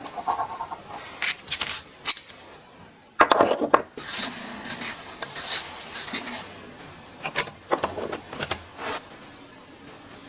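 Irregular clicks and light clinking of small hard parts being handled and set down, a few sharper knocks among softer rubbing and handling noise.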